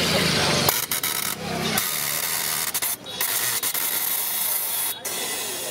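Mr. Butler home soda maker carbonating a bottle of water: a loud hiss of gas as the top is pressed down, starting under a second in and coming in pulses with short breaks.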